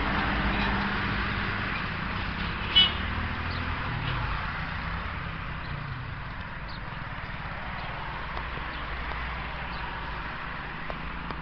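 ATV engine running steadily, gradually getting quieter. A single brief sharp sound cuts in about three seconds in.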